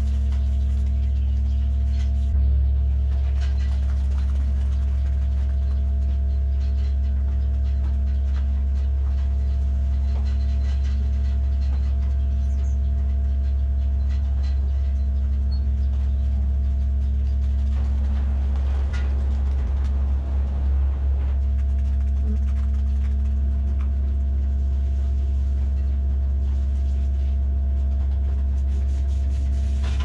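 Steady low electric hum of barn ventilation fans, unchanging throughout. A short burst of scuffling noise comes about two-thirds of the way through.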